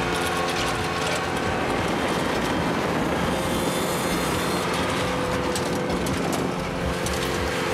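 Ventrac 4500 compact tractor running steadily as it pulls a Ballpark Groomer through loose infield dirt, with a rattling clatter from the groomer.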